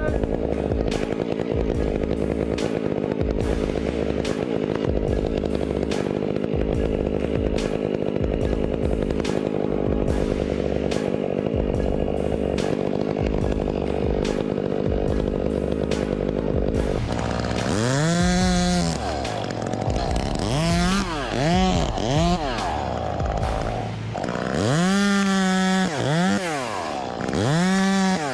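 Two-stroke chainsaw running under load at a steady pitch, as when cutting through wood. About two-thirds of the way in it is revved up and down several times, its pitch rising and falling with each squeeze of the throttle, some revs long and some short.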